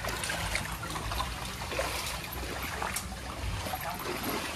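Feet wading through shallow muddy floodwater, sloshing and splashing irregularly with each step, over the trickle of flowing floodwater.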